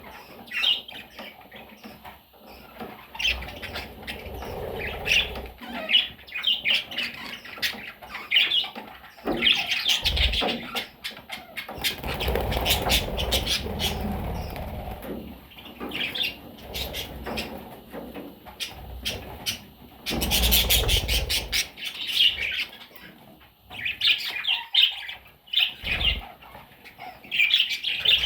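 Budgerigars chirping in quick, busy runs, with stretches of low rustling noise now and then.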